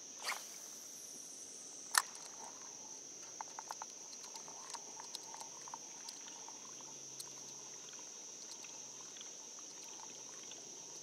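Steady high-pitched drone of summer insects, with one sharp knock about two seconds in and scattered light clicks and taps from handling the rod and kayak.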